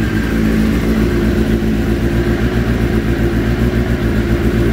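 Kawasaki ZX-7 750 sport bike's inline-four engine idling steadily through a Muzzy aftermarket exhaust, running on a little choke while still cold.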